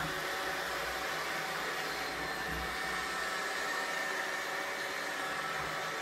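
iRobot Roomba 676 robot vacuum running: a steady whir from its motor and brushes as it drives across a wooden tabletop, with a faint thin high tone.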